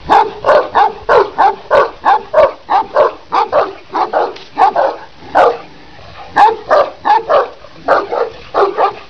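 Kangal shepherd dog barking repeatedly, a rapid series of loud barks about two or three a second, with a brief pause about six seconds in before the barking resumes.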